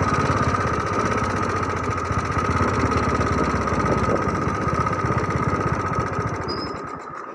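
Small engine running steadily, with a steady whine above its firing pulses, fading out near the end.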